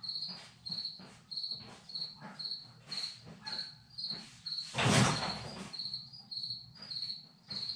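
A cricket chirping steadily, a short high chirp about twice a second, over faint scattered knocks and rustling. A louder knock comes about five seconds in.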